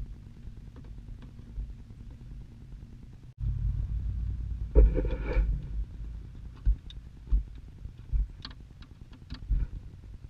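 Phillips screws being driven by hand into a plastic glove box latch: light clicks and small knocks over a low rumble of handling noise, with a brief squeaky scrape about five seconds in.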